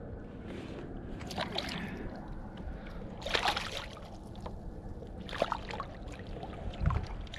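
A hooked fish splashing at the surface beside a kayak as it is brought in and grabbed by hand, with water sloshing. Several splashes, the biggest about three seconds in.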